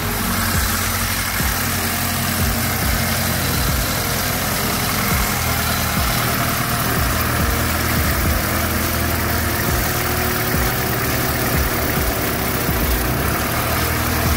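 Rebuilt BMW N20 2.0-litre turbocharged four-cylinder engine idling steadily.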